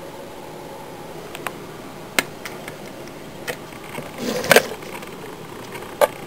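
Scattered sharp clicks and knocks from handling a clear plastic wasp enclosure and setting a bottle-cap honey dish onto its gravel floor; the loudest, a short scrape ending in a knock, comes about four and a half seconds in. A faint steady hum runs underneath.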